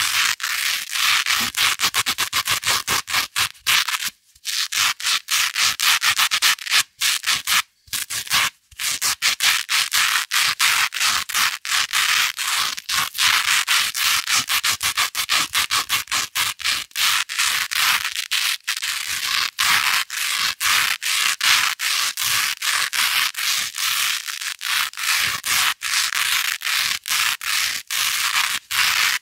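Velcro hook tape scratched rapidly back and forth against loop tape: a dense run of crisp, scratchy strokes, with a couple of brief pauses a few seconds in.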